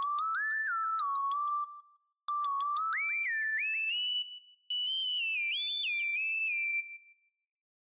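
Synthesizer melody of pure, whistle-like tones, several voices sliding together from note to note, in three short phrases that climb higher; it stops about seven seconds in.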